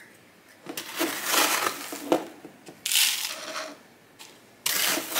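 Dry perlite being scooped from a plastic bin with a plastic scoop and poured into a plastic takeout container: gritty crunching and rattling in three bursts, about a second in, around three seconds in, and near the end.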